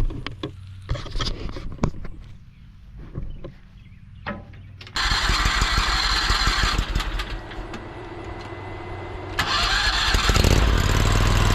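Mini skid steer's small gasoline engine idling low with a few clicks and knocks. About five seconds in it jumps suddenly to a loud, high-revving run, and it steps up louder again near the end, as when the machine is throttled up to work its hydraulics.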